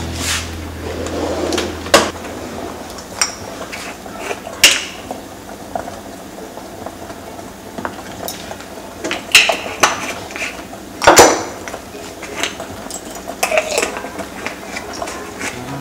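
Kitchen clatter of glass spice jars and their metal lids: scattered clinks and knocks as jars are picked up, opened, shaken over a clay pot and set down, with a few louder knocks about two, five and eleven seconds in.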